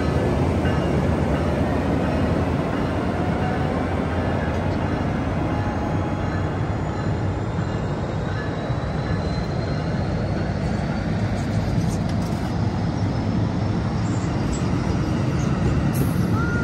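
Amtrak passenger train rolling slowly past at a station platform as it pulls in: a steady rumble of wheels on rail, with a faint high squeal from the wheels above it.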